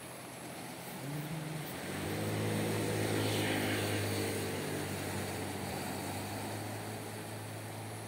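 An engine droning past: a steady low hum that swells over the first few seconds, is loudest around the middle, then eases off slowly while still running. A steady hiss sits underneath.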